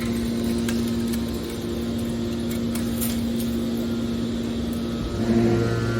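Hydraulic metal baler's motor and pump running with a steady hum and a few light clicks. About five seconds in, a lower, louder hum joins.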